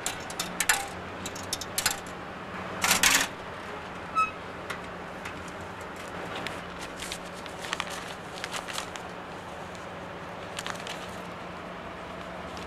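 Hands working a street newspaper vending box: scattered metal clicks and rattles from the box door, with a louder scraping rustle about three seconds in, and lighter ticks and paper handling after, over a steady low hum.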